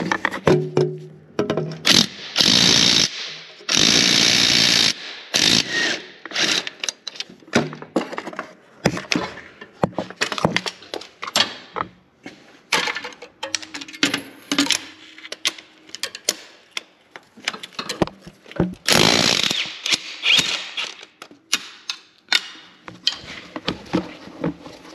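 Ratchet on a long wobble extension spinning out the transmission's E14 Torx bolts in short runs, the three longest about two, four and nineteen seconds in, with metal clicks and knocks of the socket and tools between them.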